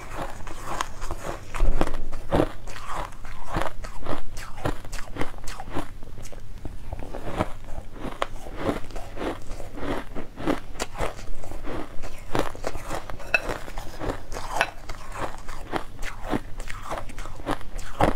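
Crunching and chewing of mouthfuls of purple crushed ice in quick irregular crackles, along with a plastic spoon scraping and scooping the ice in a glass bowl.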